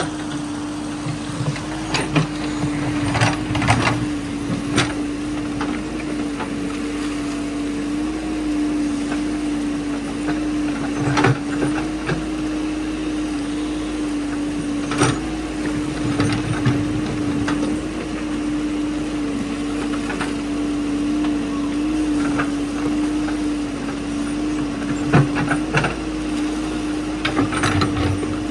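Caterpillar backhoe loader's diesel engine running at a steady pitch as the backhoe digs mud and stones out of a creek bed, with scattered sharp clanks and knocks from the bucket and arm.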